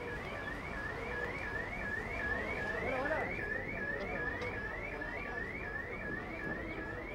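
An electronic alarm or siren tone: a high rising sweep that repeats evenly a few times a second and holds steady.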